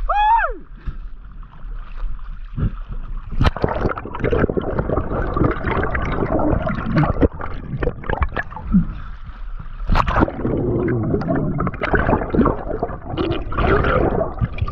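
Seawater sloshing, gurgling and splashing around a waterproof action camera at the ocean surface and just below it, with irregular clicks and bubbly spatters.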